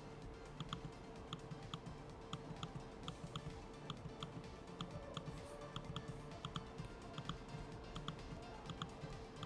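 Force Touch trackpad of a 2015 13-inch MacBook Pro giving quiet haptic clicks as a finger presses and releases, about two a second and often in close pairs.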